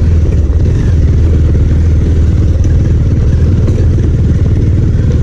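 Motorcycle engine running steadily at low revs as the bike is ridden slowly over a dirt track.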